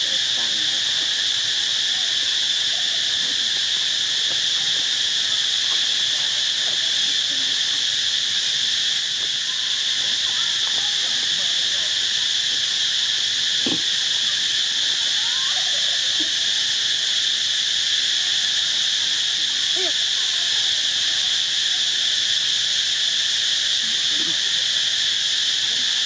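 Steady, high-pitched drone of an insect chorus, unbroken and even throughout, with a few faint short calls underneath.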